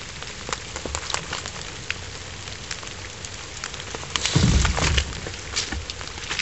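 Rain pattering, a steady hiss dotted with sharp ticks of single drops. About four seconds in, a louder rustle of footsteps through wet dead leaves close by lasts under a second.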